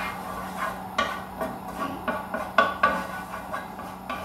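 Cookware clattering: about ten sharp metal clinks and knocks of utensils and lids against pots and pans on the stove, the loudest two a little past the middle.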